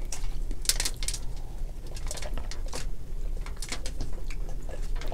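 Eating at a seafood boil: irregular sharp crackles and wet clicks as boiled crab and lobster shells are picked apart by hand.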